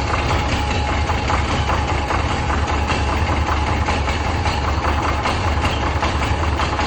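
An engine idling steadily with a rapid, even clatter after a hard start in severe cold, even though its block heater was plugged in.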